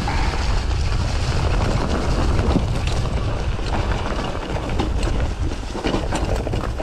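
Wind buffeting the microphone during a fast mountain-bike descent over rough ground, with scattered clicks and knocks from the bike rattling over the bumps.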